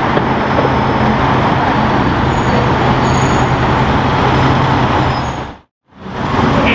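City street traffic: a vehicle engine running with a steady low hum over road noise, with no revving. It cuts out to silence for a moment near the end.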